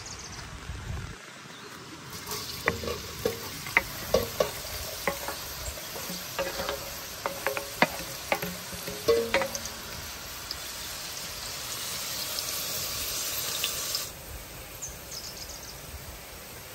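Chopped onions sizzling as they go into hot oil in a copper pot, with a string of sharp knocks and scrapes from the wooden spatula against the metal as they are pushed in. The sizzle cuts off sharply near the end.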